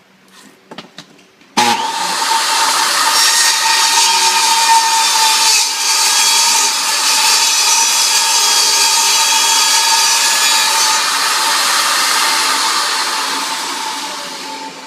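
Power saw starting suddenly a second or two in and cutting a laminate floor plank, a steady whining cut that dies away toward the end. A few light clicks come before it starts.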